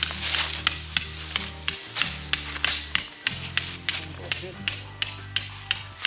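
Hammer driving a tent peg: a steady run of about three blows a second, each with a high ring.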